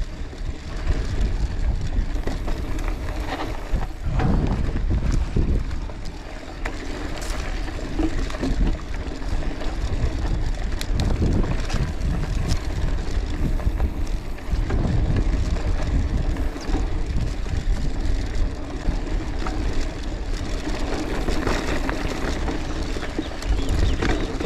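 Wind buffeting the microphone of a moving bicycle on a dirt track, a steady low rumble with scattered clicks from the bike and track throughout.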